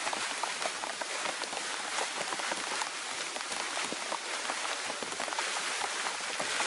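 Heavy rain falling steadily, a continuous hiss dotted with many small, sharp drop hits.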